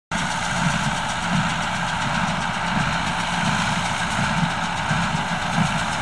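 Ford tractor's diesel engine running steadily as it drives a John Deere small square baler, with a regular beat about three times every two seconds from the baler working through barley straw.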